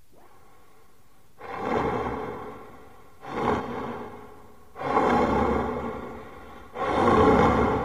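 Horror radio-play sound effect: four loud, rushing, breath-like swells that rise quickly and fade, about one every second and a half, starting about a second and a half in.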